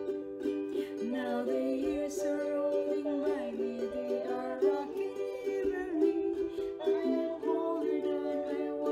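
Background music led by a strummed ukulele.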